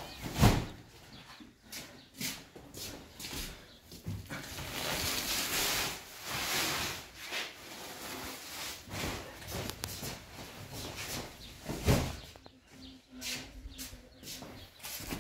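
Large woven sacks set down on a tiled floor: a heavy thud about half a second in and another about twelve seconds in, with rustling and scraping of the sack material as they are handled and dragged in between.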